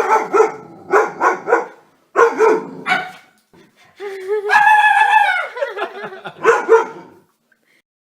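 A dog barking in quick bursts, several times over, with a longer drawn-out call about four seconds in.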